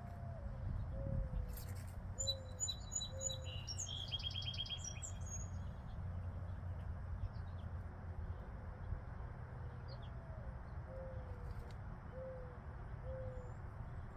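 Birds calling: a dove gives a phrase of four low coos near the start and again about ten seconds in. Between them a small songbird makes quick high chirps and a short trill, all over a steady low rumble.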